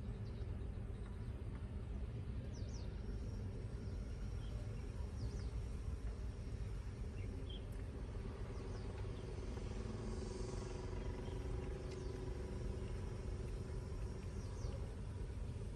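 Steady low outdoor background rumble with no clear single source, with a few faint, brief high chirps scattered through it.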